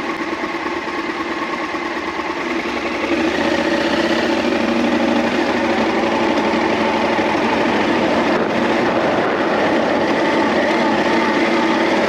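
Motorcycle engine running steadily as the bike rides along a gravel track, with wind and tyre noise; it gets louder about three seconds in and holds there.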